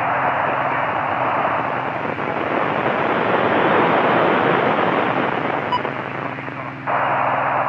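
Radio receiver hiss from the AO-92 (Fox-1D) amateur satellite's 145 MHz FM downlink, heard through a Kenwood TS-790E with no station talking: a steady rushing noise. The noise fades a little and then cuts back in abruptly about seven seconds in.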